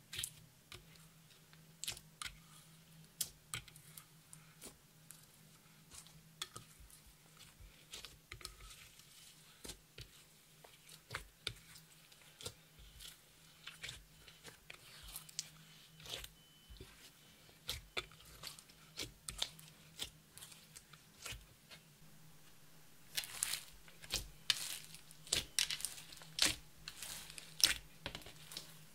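Clear slime loaded with glitter and crushed makeup being pressed, folded and squeezed by hand: a run of sticky crackles and pops. The crackling grows denser and louder about three-quarters of the way through.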